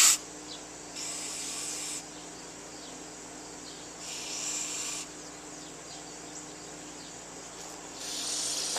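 Aerosol carburetor cleaner hissing in three spray bursts of about a second each, squirted into the passages of a stripped ATV carburetor to flush out gunk. A sharp click comes right at the start.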